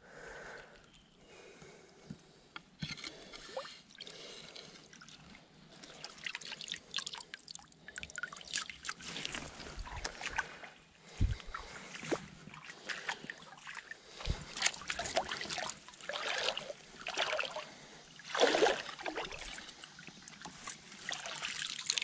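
Shallow creek water trickling, then splashing and sloshing in irregular bursts as hands and a dip net sweep through it.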